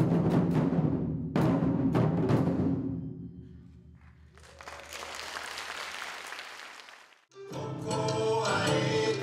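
Ensemble of Japanese taiko drums playing the last few strikes of a piece, the final hit about a second and a half in ringing out and fading. Applause follows, then after a sudden cut an ondo folk dance song begins.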